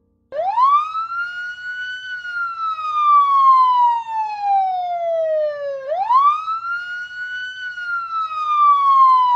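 Police siren wailing, starting suddenly: a quick rise and slow fall in pitch, with the cycle starting over about six seconds in.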